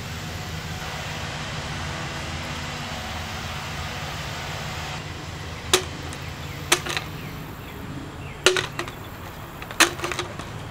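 Hard plastic leaf blower tube sections knocking and clicking together as they are fitted, four or five sharp clicks in the second half, over a steady low drone of a distant lawn mower.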